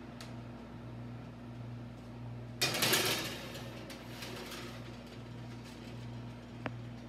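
A wall oven's door pulled open and its metal rack slid out, a short rattling rush of noise about two and a half seconds in, over a steady hum. A single sharp click comes near the end.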